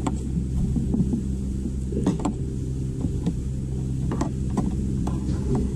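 Spoons and utensils clinking against plates and serving dishes, in short sharp taps a second or so apart, over a steady low mechanical hum.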